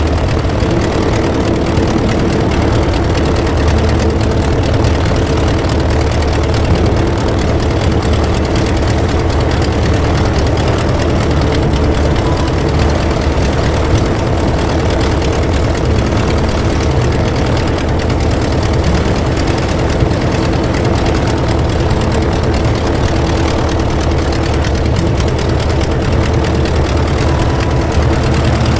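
The four-cylinder Lycoming 360 engine of a newly built Lancair 360, running uncowled with its propeller turning and idling steadily on its first engine run.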